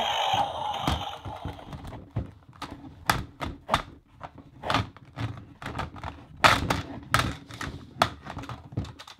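Hard plastic dinosaur toy figures knocking and clacking against each other in quick, irregular hits, a dozen or more, with the loudest clack about six and a half seconds in.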